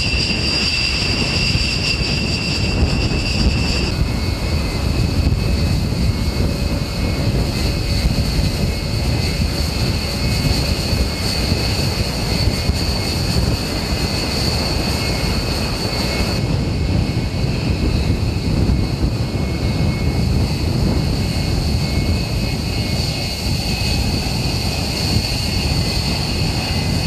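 B-1 Lancer bomber's jet engines running: a steady, loud roar with a constant high-pitched turbine whine over it. The whine's pitch changes slightly twice, about 4 and 16 seconds in.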